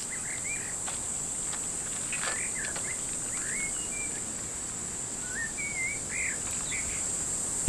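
Outdoor ambience of insects droning steadily in a high, even pitch, with birds chirping in short rising and falling notes several times.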